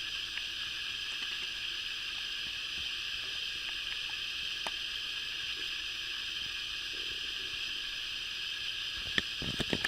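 Steady high-pitched hiss with no breathing rhythm in it, and a few soft clicks and knocks near the end.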